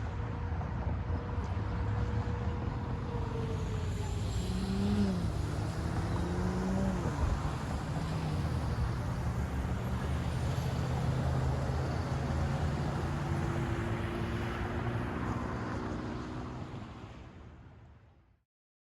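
Road traffic at a busy intersection: passing cars and trucks, engine and tyre noise with a few rising and falling engine tones, fading out near the end.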